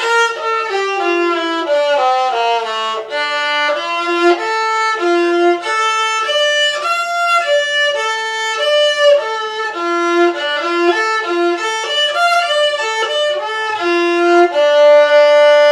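A violin played by a child running D minor scale patterns in first position, a quick stream of separately bowed notes stepping down and up, ending on one long held note.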